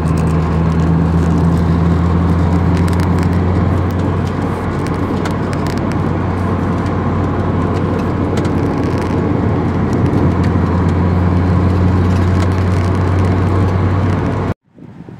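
Nissan S15 Silvia's four-cylinder engine running steadily at cruise, a low drone with road and tyre noise, heard from inside the cabin. It cuts off suddenly near the end.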